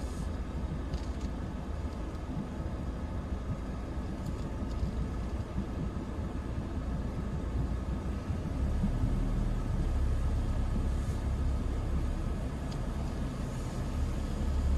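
A car's low driving rumble heard from inside the cabin as it rolls onto a rough concrete-slab ramp. The rumble grows louder about eight and a half seconds in, as the car climbs the slope.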